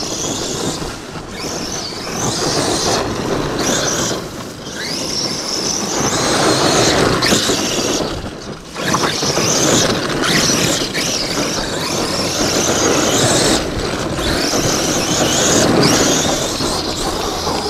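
1/5-scale Arrma Outcast electric RC truck driven at speed on loose dirt: the brushless motor and geared drivetrain whine, climbing in pitch with each burst of throttle and dropping away, several times over. Under it, the rough hiss of the tyres spraying dirt.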